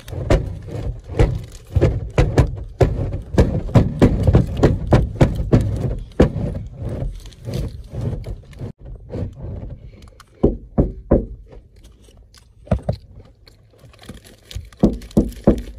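Close handling noise: a rapid run of knocks, taps and scrapes right at the microphone, thinning out after about eight seconds to a few scattered taps.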